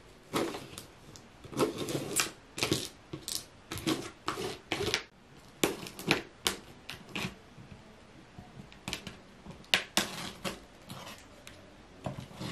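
Spyderco Paramilitary 2 folding knife slicing through packing tape along the seams of a cardboard box: a string of short, irregular cutting and scraping strokes, one sharper stroke about ten seconds in.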